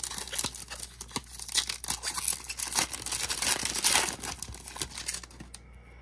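Crinkling and rustling of a foil trading-card pack wrapper and cards being handled: dense crackle with many small sharp clicks, dying away near the end.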